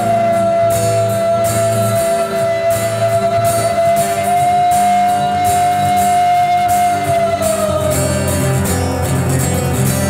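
Live acoustic guitar music, with one long, steady high note held over the guitar that slides down in pitch about seven seconds in.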